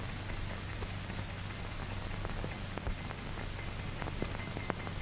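Steady hiss and crackle of an old 1940 film soundtrack, with a low hum underneath and scattered faint clicks.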